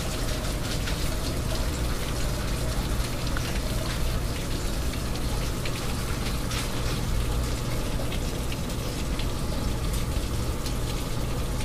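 Light rain falling, with scattered drops ticking close by, over a steady low hum.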